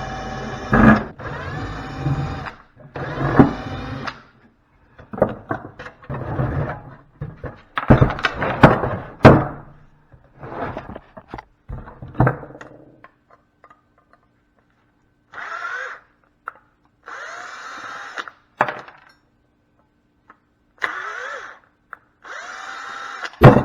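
Cordless drill/driver running in short bursts, three in quick succession at the start and four more in the second half, on the fasteners of a large electrical fuse holder. Between the bursts, metal parts clank and knock as they are handled.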